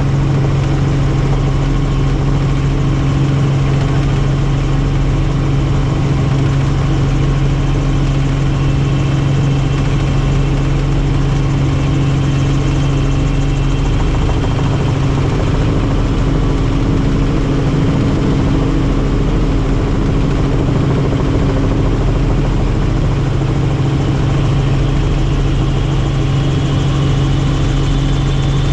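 Helicopter in flight: the steady, loud drone of its rotor and turbine engine, unchanging throughout.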